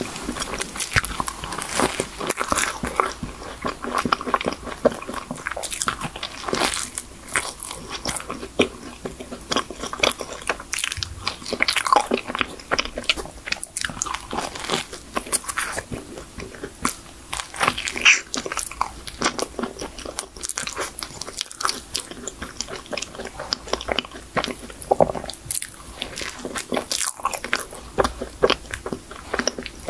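Close-miked eating of a chocolate cream-filled choux pastry: bites and steady chewing, with many small sharp clicks coming irregularly throughout.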